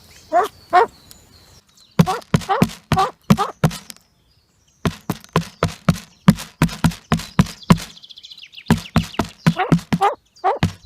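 A bird calling over and over in quick series of short, harsh notes, about three a second, each note rising in pitch; the calling breaks off twice for a moment.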